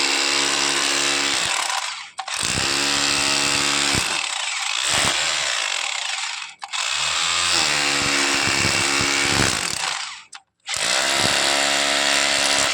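A handheld electric power tool running in long bursts, stopping sharply and restarting three times. Its motor pitch sags and picks up again partway through.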